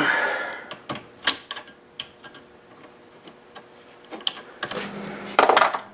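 Irregular sharp metal clicks and taps of a small hand tool turning the nuts on the spring-loaded bed-leveling screws of a RepRap Prusa Mendel 3D printer, tightening them to compress the bed springs.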